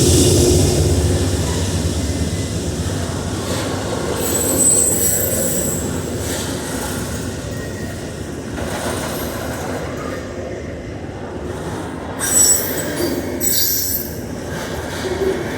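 Train cars rolling past on the rails, loudest at the start and easing off a little. A brief high wheel squeal comes about four seconds in, and a few short screeches come near the end.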